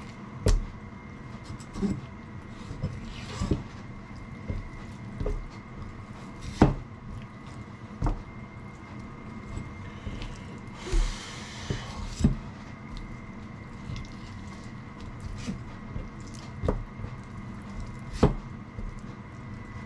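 A knife knocking and tapping on a cutting board as a large soft-shelled turtle is cut apart at the joints: irregular sharp knocks, about eight louder ones spread out, over a faint steady hum. A brief hiss comes about eleven seconds in.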